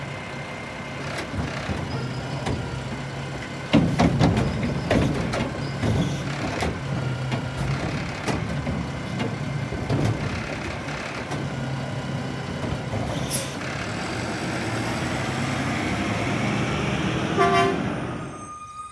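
Mack LR Heil Low Rider garbage truck running at the curb, its diesel and hydraulics humming steadily. From about four seconds in, a run of metal bangs and clatter from the loading gear and Curotto Can. Later the engine and hydraulic pump rise in pitch as they rev, with a short toot near the end.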